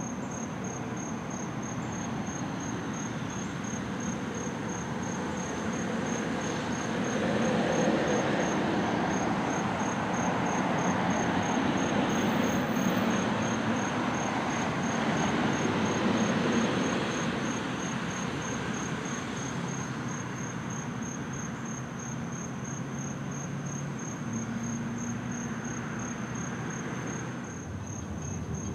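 Insects chirping in a steady, high, pulsing trill, about three pulses a second. A broad rumble swells from about six seconds in, stays loudest through the middle, and fades away after about seventeen seconds.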